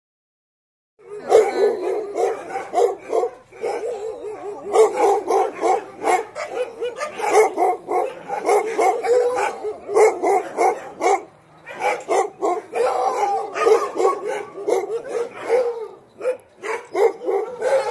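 Many huskies in a sled-dog kennel yard barking and howling together in a continuous din, starting about a second in.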